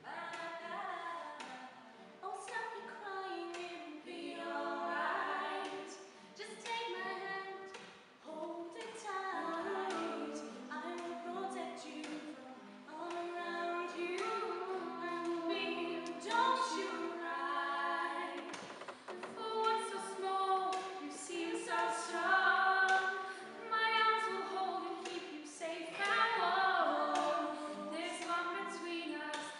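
Young women singing a pop ballad in close harmony, accompanied by an acoustic guitar.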